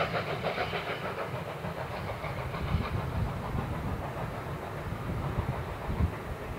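LSWR T3 4-4-0 steam locomotive No. 563 and its train going away into the distance, its rhythmic beat fading over the first second or two. A low, uneven rumble of wind on the microphone is left.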